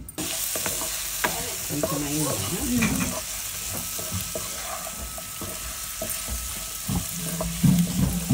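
Spiced chicken pieces sizzling steadily in hot oil in a nonstick pan, stirred with a spatula, with scattered light clicks of the spatula against the pan.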